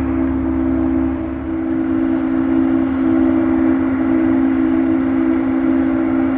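Embraer E195-E2's Pratt & Whitney PW1900G turbofans at taxi power: a steady drone with two held low notes over a broad rushing noise. A deeper rumble underneath fades out about a second and a half in.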